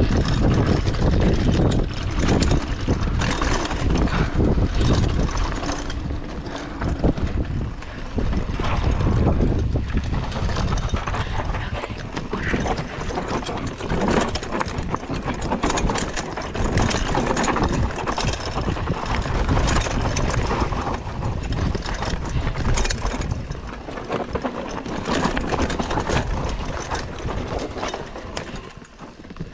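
Mountain bike riding down a dirt forest trail: tyres rolling over dirt, roots and leaves, with frequent knocks and rattles as the bike hits bumps. It gets quieter near the end.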